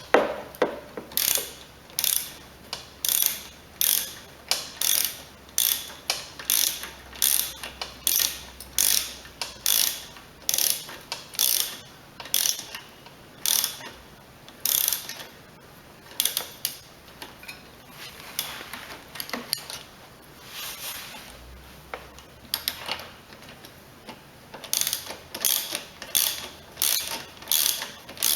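Socket ratchet wrench clicking in short repeated strokes as bolts are tightened, with a quieter lull in the middle.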